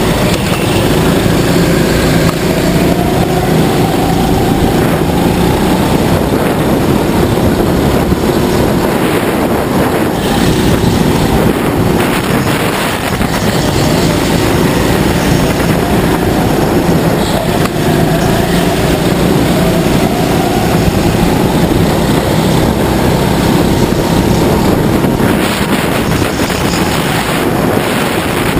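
Go-kart engine running hard at racing speed, its pitch rising and falling through the corners, with wind buffeting the onboard microphone.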